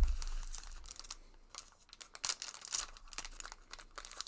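A dull thump at the start, then crinkling and tearing of a foil trading-card booster pack wrapper being handled and torn open.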